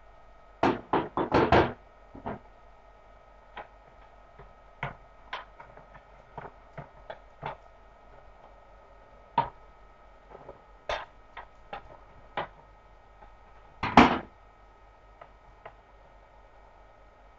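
A series of sharp knocks and clicks at irregular intervals, with a quick run of louder knocks about a second in and another loud knock near the end.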